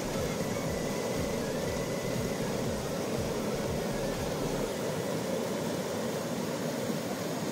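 River rapids: whitewater rushing steadily over rocks in a constant, even roar.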